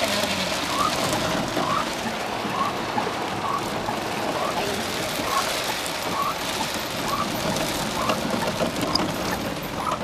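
Heavy rain falling on a vehicle, heard from inside the cabin, with a short rising squeak repeating about once a second.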